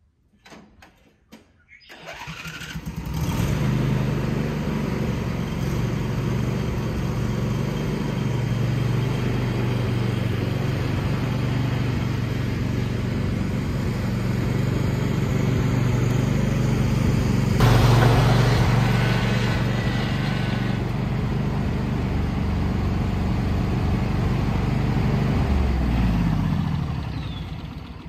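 John Deere LA120 ride-on mower's twin-cylinder engine starting about two seconds in and then running steadily while the mower drives. It is briefly louder around eighteen seconds, and near the end it winds down with falling pitch as it is shut off.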